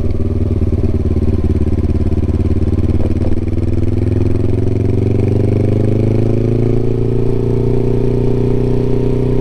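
Suzuki GS500E parallel-twin engine with a Takkoni aftermarket exhaust running at low revs; its pitch rises gently from about halfway through, then holds steady.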